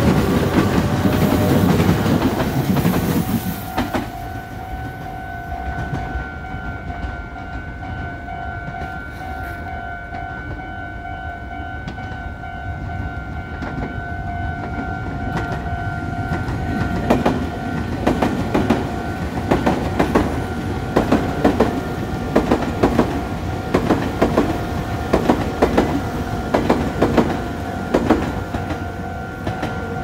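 A Meitetsu 3500 series electric train runs past, loud for the first three seconds or so and then fading. A level-crossing warning bell rings on as a steady tone. From about 17 s a Meitetsu 1200 series Panorama Super passes, its wheels knocking over the rail joints in quick clusters (the ガタンゴトン clickety-clack) until near the end.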